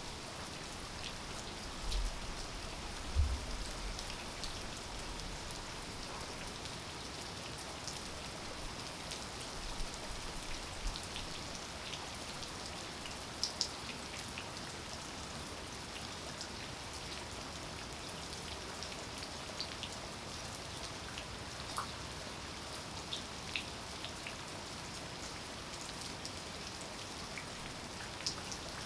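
Steady rain falling, with scattered louder drops ticking close by and a few low thumps about two to three seconds in.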